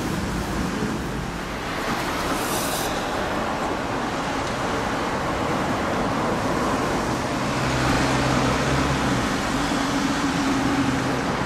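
Steady city road traffic at a busy intersection: cars, trucks and buses running past. A vehicle engine's hum stands out just past the middle, and there is a brief hiss about two and a half seconds in.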